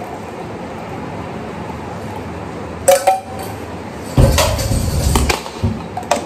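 Tea pan and cup clinking and clattering as tea is poured: a sharp ringing clink about three seconds in, a loud clatter lasting about a second a little later, and another short clink near the end.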